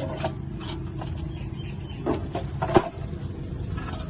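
Scattered clicks and knocks of tools and metal parts being handled while a car's fuel pump is swapped, about half a dozen in all, the sharpest a little under three seconds in, over a steady low hum.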